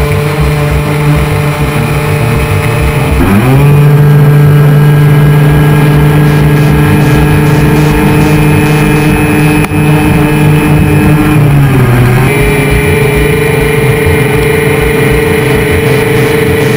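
Racing hovercraft engine and thrust fan running hard, heard from onboard. The pitch climbs about three seconds in, holds steady, then dips and climbs again near twelve seconds.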